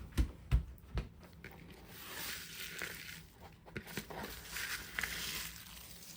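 A few soft thumps, then a rustling hiss from about two seconds in: confetti being poured out of a bucket onto the floor.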